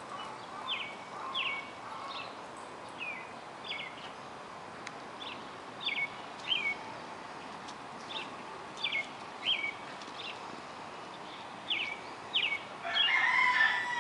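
A small bird calling over and over with short falling chirps, often in pairs, about once a second. Near the end a dog joins in with whiny play noises.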